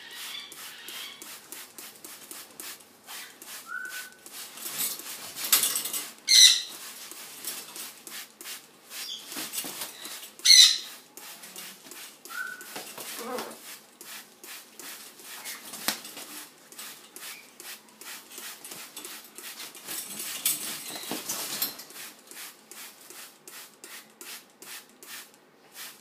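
A macaw flapping and rustling its wings while hanging upside down, a steady run of quick wing strokes and feather rustles. It gives two short loud squawks, about six and ten and a half seconds in, and a few brief whistle-like calls.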